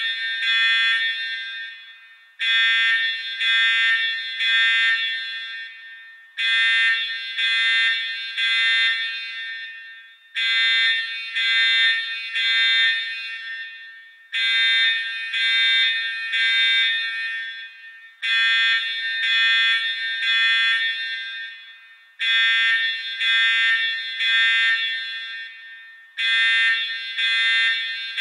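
Electronic emergency alarm buzzer sounding in high-pitched buzzing blasts that repeat about every four seconds. Each blast starts abruptly, pulses a few times and fades out before the next.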